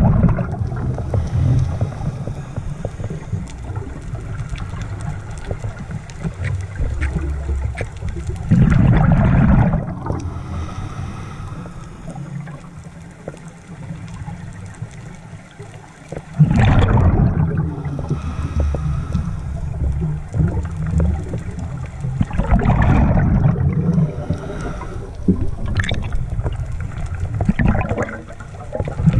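A scuba diver's exhaled bubbles gurgling out of the regulator, heard underwater. The bursts come about every six to eight seconds, each a second or two long, with a low rumble between breaths.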